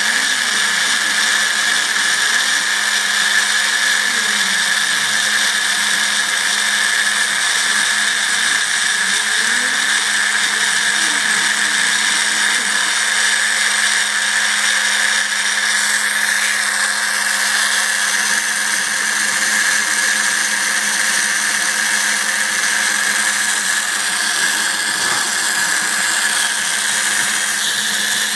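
CNC router spindle running steadily with a high whine while its small end mill engraves letters into a wooden board. Faint rising and falling tones sound under it in the first half as the machine moves.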